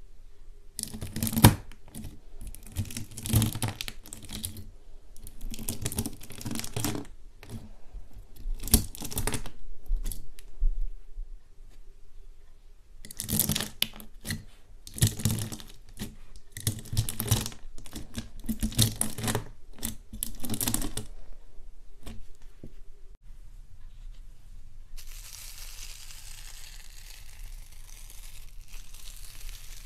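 A knife slicing and pressing through bubble-filled clear slime, crackling and popping in bursts of about a second each, in two runs of several strokes. Near the end a steady hiss takes over.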